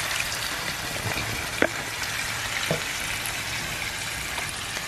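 Floured chuck roast browning in hot grease in a frying pan: a steady sizzle, with two small pops about one and a half and two and a half seconds in.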